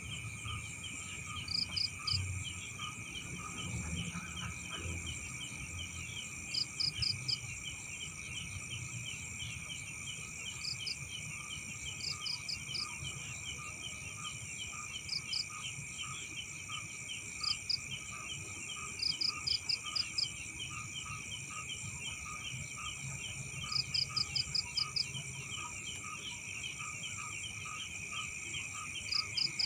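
Night chorus of crickets and other insects trilling steadily, with fast continuous chirping underneath. Every couple of seconds a quick run of three to six louder, higher chirps stands out.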